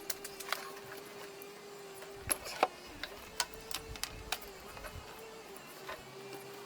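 Scattered sharp plastic and metal clicks, about a dozen at uneven intervals, from the transmission's electrical connectors being worked loose and unplugged, over a steady faint hum.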